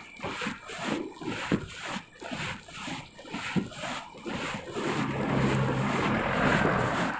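Wind buffeting the microphone of a camera on a moving bicycle, pulsing about twice a second. About five seconds in, an oncoming light truck's engine passes close by, a steady louder hum that covers the wind.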